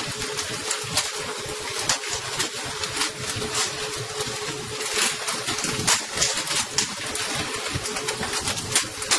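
Boat engine running steadily with a constant hum, over a rumbling, crackling noise of wind and water.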